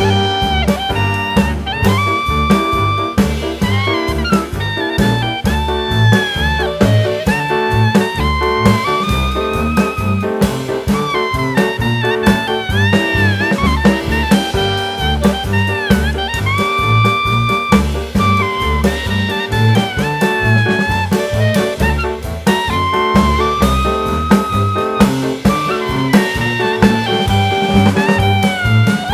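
Background jazz music with a steady beat, a saxophone-like horn playing the melody.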